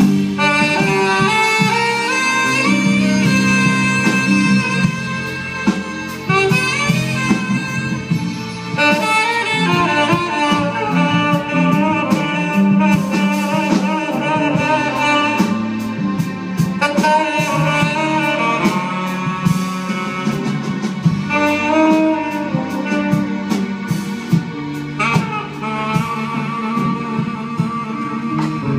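Live jazz band playing, with a tenor saxophone carrying a bending, sliding melody over bass and drums.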